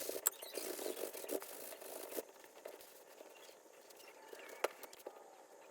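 Hands rubbing and scraping on an old leather baseball glove, with a few sharp clicks. The rubbing is louder for about the first two seconds, then quieter.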